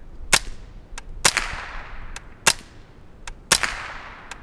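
Suppressed .22 LR rifle shots from a Smith & Wesson M&P 15-22 fitted with a Dead Air Mask suppressor: four sharp reports about a second apart, each with a short fading tail, and a fainter sharp click shortly before each.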